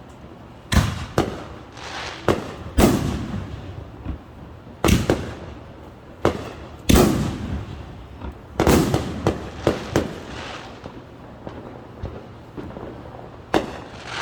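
Fireworks going off in a string of irregular sharp bangs, about a dozen, each trailing off in a rolling echo, with a lull of a few seconds before one last bang near the end.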